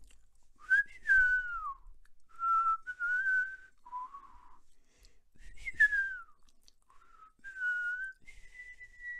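A person whistling a slow melody in several short phrases with gaps between them. Most notes are drawn out, two of them slide down in pitch, and the last is a held higher note.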